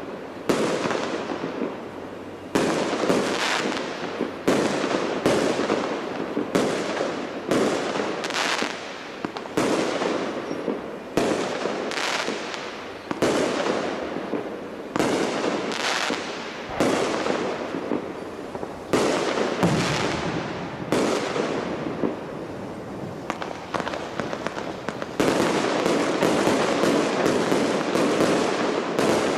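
Large display fireworks going off, one sharp bang about every second, each followed by a fading rumble. Near the end the bursts come thick and fast in a continuous crackling barrage.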